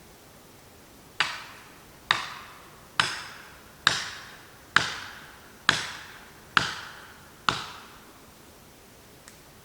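Eight hard hammer blows, about one a second, each with a short ringing decay: a felling wedge being driven into the saw cut of a large oak to tip it over.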